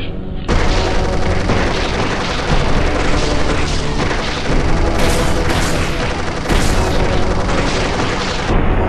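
A loud, dense booming roar over music, coming in suddenly about half a second in and holding on.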